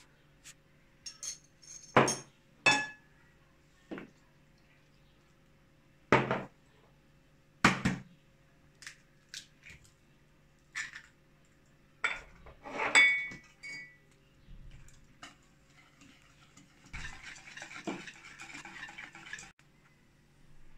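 Metal utensils knocking and clinking against a ceramic mixing bowl as ingredients go in, some knocks ringing briefly. Near the end comes a spell of quick fork strokes whisking batter in the bowl.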